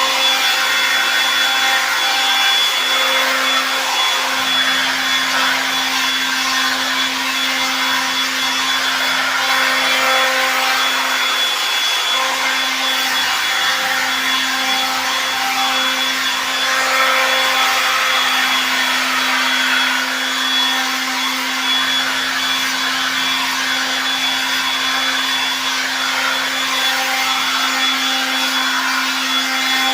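Electric power tool motor running steadily with a constant whine and a dense hiss.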